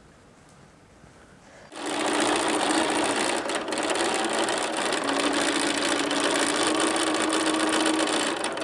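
Bernina sewing machine stitching a seam through pinned quilting cotton. It starts up about two seconds in and runs steadily at sewing speed with an even hum.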